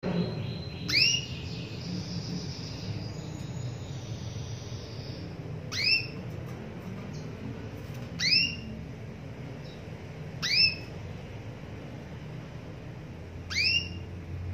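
Female domestic canary calling to a male, the call used to coax a silent male canary into song: five short calls, each sweeping sharply up in pitch, spaced two to three seconds apart.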